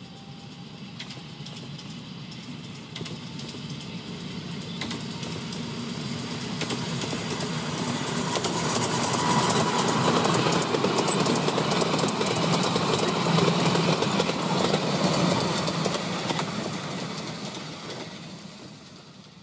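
Miniature railway passenger train passing close by: it grows louder through the first half, wheels clicking on the rails as the loaded carriages run past, then fades away near the end.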